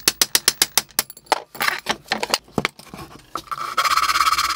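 A quick run of sharp metallic clicks, about eight a second, then a few rougher scrapes. Near the end comes a steady rasping as a slim file works inside the hole for the threaded rod in a plywood panel.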